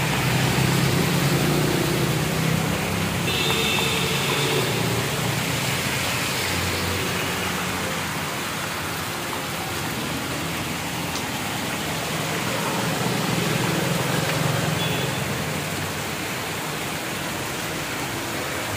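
Heavy rain pouring down on a wet road, a steady hiss with splashing water. Passing motorbike and autorickshaw engines hum through it, swelling in the first few seconds and again about thirteen seconds in.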